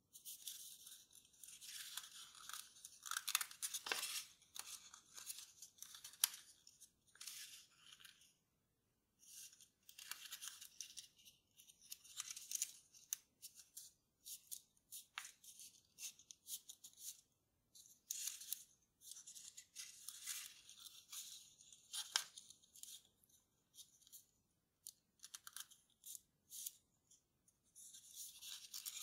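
Kraft paper being folded by hand: irregular rustling and crinkling, with sharp clicks as creases are pressed in and short pauses between bursts.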